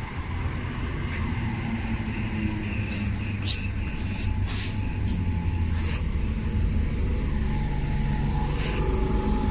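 Class 319 electric multiple unit at the platform, a low rumble that grows steadily louder, with several short, sharp hisses of air.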